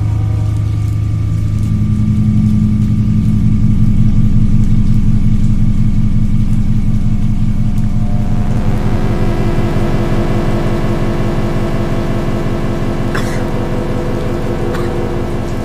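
A low, steady droning hum made of several held tones, of the kind posted as an unexplained 'strange sound in the sky'. About halfway through it shifts to a brighter, fuller set of tones, then slowly fades.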